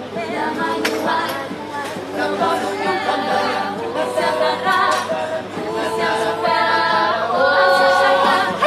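Mixed a cappella choir of women's and men's voices singing in harmony with no instruments. The singing swells toward a loud held chord near the end.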